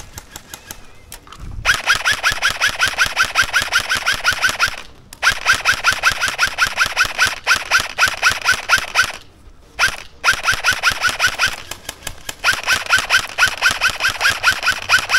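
Airsoft electric rifle firing four long full-auto bursts of evenly spaced shots, each shot with a short rising motor chirp. The first burst starts about two seconds in, and there are brief pauses between bursts.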